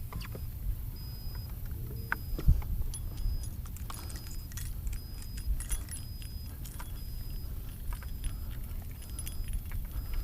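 Small metal pieces clicking and jingling in quick, irregular bunches, over a steady low rumble, with a faint short high beep repeating about every second and a half.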